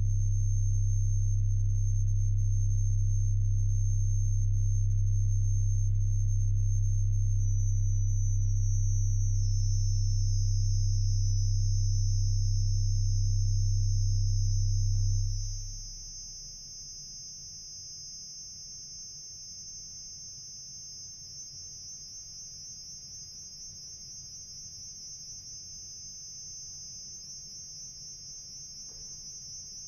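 Pipe organ sustaining a deep low drone under a cluster of very high, thin steady notes, with more high notes joining a few seconds in. About halfway through, the low notes are released, leaving only the quiet high cluster held on.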